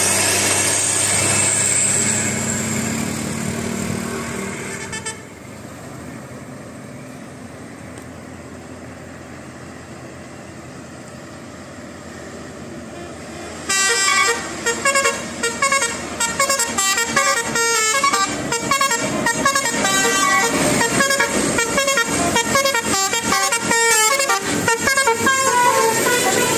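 Indonesian bus's telolet multi-tone air horn, a Basuri horn, playing a rapid tune of quickly changing notes from about halfway through, loud over the bus's running noise. The first few seconds are also loud with pitched tones, then it drops to a quieter hum of the bus on the road.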